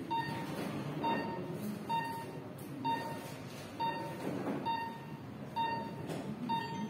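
Patient monitor's pulse beep sounding once per heartbeat: short beeps at one steady pitch, a little under one a second (about 65 a minute), over a faint room murmur.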